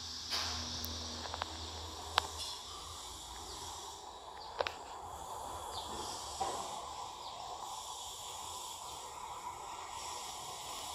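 Tropical forest ambience: a steady hiss of insects, with a handful of sharp clicks scattered through it, the loudest about two seconds in and just under five seconds in.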